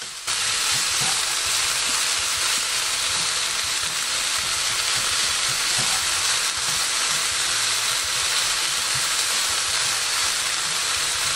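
Ground pork, cabbage and garlic chives sizzling steadily in sesame oil in a frying pan as they are stir-fried together.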